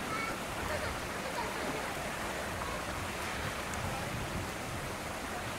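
Steady rushing outdoor background noise, even in level, with a flutter in the low end and faint brief high sounds scattered through it.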